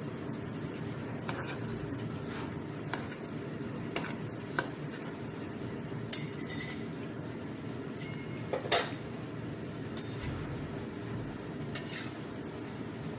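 Drumstick-flower pakoras deep-frying in hot oil in a metal karahi, a steady sizzle throughout, with a metal spatula clinking and scraping against the pan now and then. The loudest clink comes about two-thirds of the way through.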